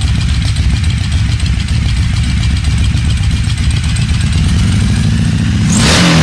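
Feuling W3 motorcycle's air-cooled three-cylinder W engine (a Harley V-twin with a third cylinder added) idling steadily, then revved once near the end.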